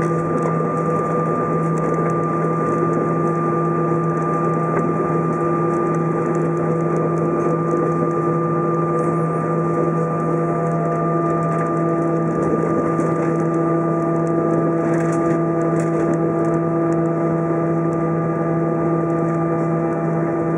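Airbus A320 cabin noise during taxi: a steady jet-engine drone with several held tones under it, holding level without spooling up, with a few faint ticks.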